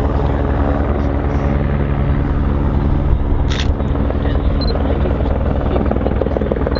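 Loud, steady low mechanical drone with a fast, even pulsing.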